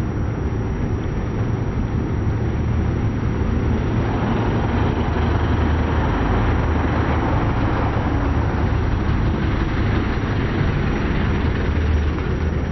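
Steady low rumbling noise with a hiss above it, growing a little fuller about four seconds in.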